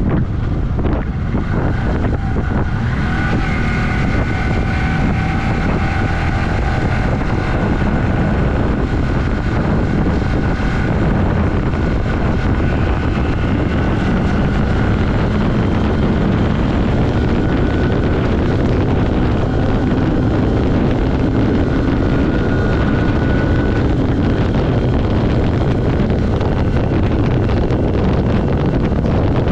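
1982 Yamaha XS400 Maxim's air-cooled parallel-twin engine running hard at road speed, its pitch climbing a few seconds in and again around the middle as it pulls through the gears, under loud wind rush on the microphone.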